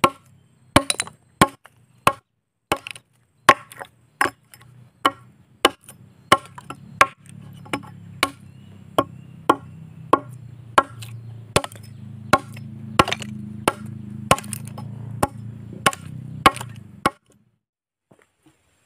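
Chopping strokes of a blade into a wooden log, cutting out the notch between two saw kerfs, at a steady pace of about one and a half strikes a second. A low steady hum runs underneath, and the chopping stops about two seconds before the end.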